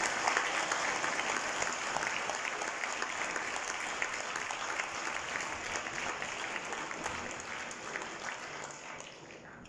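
Crowd of spectators applauding, dense clapping that slowly fades and dies away near the end.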